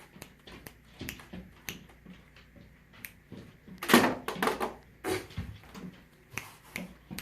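Hard plastic toy lightsaber parts being handled: a string of clicks and knocks, the loudest cluster about four seconds in.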